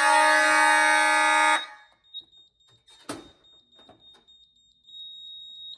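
Loud electronic alarm siren from a Moose Z1100E security system set off by its fire panic button: a steady buzzy tone with many overtones that cuts off suddenly about a second and a half in. After it a faint high steady beep continues, with a click about three seconds in.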